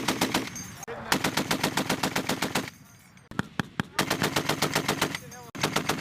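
Crew-served machine gun firing long bursts of rapid, evenly spaced shots, with short pauses between the bursts.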